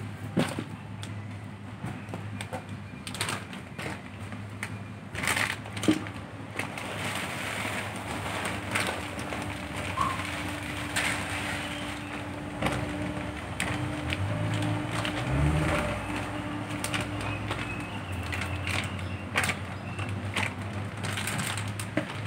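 Dry cat food kibble being poured from its plastic bag into a plastic container: a stream of small crackles and rattles with the bag crinkling and the container lid being handled. A low hum swells briefly around the middle.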